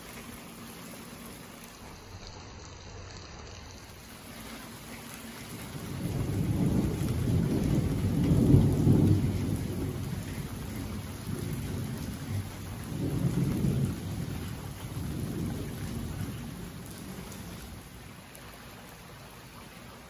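Steady rain falling, with a long low roll of thunder that builds from about a quarter of the way in, is loudest near the middle, and rumbles on in a few swells before fading.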